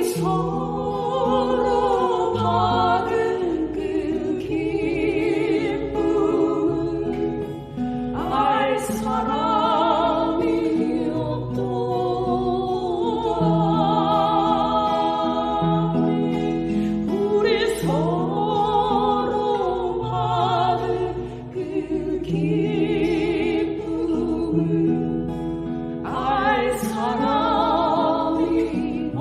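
Christian praise song: singing over instrumental accompaniment, with a new sung phrase beginning about every nine seconds.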